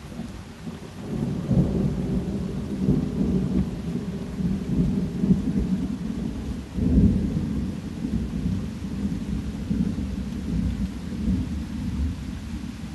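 Thunder rolling in a long, low rumble that builds about a second in and swells again near the middle, over a steady hiss of falling rain.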